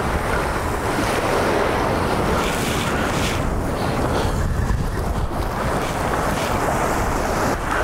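Waves washing against jetty rocks, with wind buffeting the microphone in a steady, loud rush.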